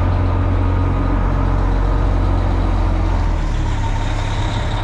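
Heavy diesel engine idling, a loud, steady, deep hum.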